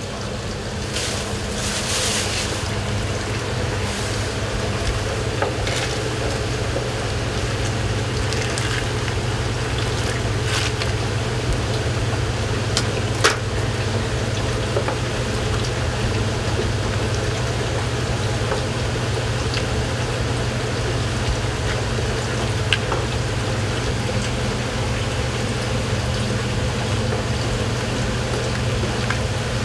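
Udon boiling in a large pot of water at a rolling boil, stirred with a long wooden stick, over a steady low drone of the kitchen. A sharp knock comes about halfway through.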